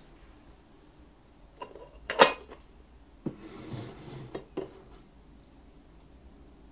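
Hard objects on a desk being picked up and set down while the desk is cleaned: a loud, ringing clink about two seconds in, then a few lighter knocks and clinks with a brief rubbing sound.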